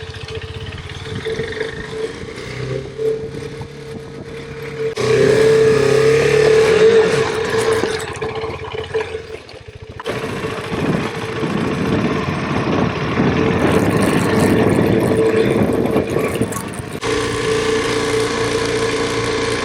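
KTM 390 Adventure's single-cylinder engine running while riding a dirt trail, mixed with wind and tyre noise. The sound shifts abruptly several times, and is loudest and noisiest in the middle stretches.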